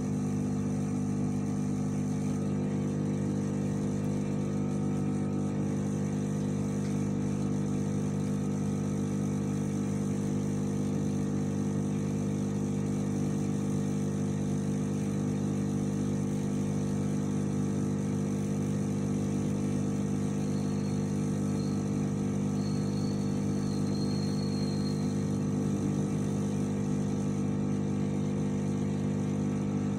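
Steady machine hum with several fixed low tones, unchanging throughout, from running workbench equipment. A faint high tone wavers in briefly about two-thirds of the way through.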